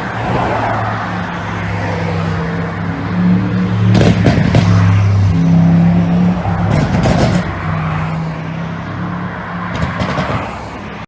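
Mercedes-AMG E63's twin-turbo V8 running with its engine note stepping up and down, broken by three clusters of sharp exhaust pops and crackles from a pop-and-burble ECU tune: about four seconds in, about seven seconds in, and near the end.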